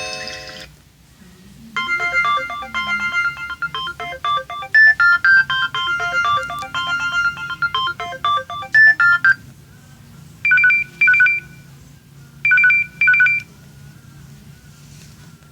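LG GW300 mobile phone playing its built-in ringtones through its loudspeaker. First comes a quick, bright polyphonic melody lasting about seven seconds. After a short pause, a different tone follows: two pairs of short two-note beeps.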